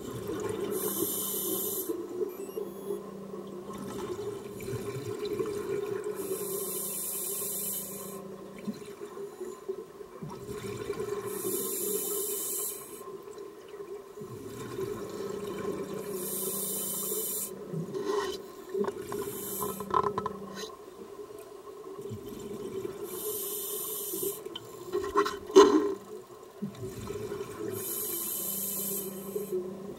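A scuba diver breathing on a regulator, heard underwater: six hissing inhalations about every five seconds, each followed by a burble of exhaled bubbles, over a steady low hum. A few clicks and knocks come in the second half, one much sharper than the rest.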